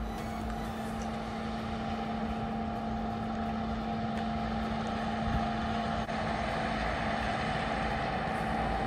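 A steady engine drone holding one constant pitch throughout, mixed with wind rumbling on the microphone.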